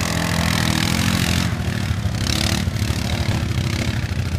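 ATV engines running: a Yamaha Grizzly four-wheeler idling close by, with a steady low rumble, while another ATV's engine pulls away up the hill, its higher note dropping out after about a second and a half.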